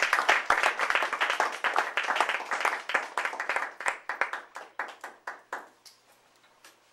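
Audience applauding, the clapping thinning to a few scattered claps and dying away about six seconds in.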